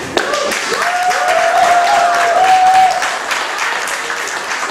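Audience applauding and clapping at the end of a spoken-word poem, with one voice holding a long cheer for about two seconds in the middle.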